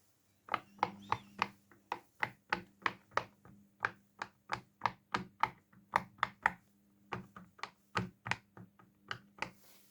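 Fidget toys being popped: a quick, uneven run of sharp pops, about three a second, starting about half a second in, over a faint steady low hum.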